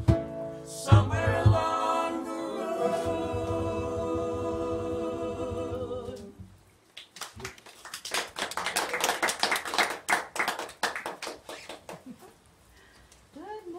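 A small acoustic band of guitar, cajon and voices ends a song with a few last drum hits and a long held final chord that dies away about six seconds in. A small audience then claps for about four seconds.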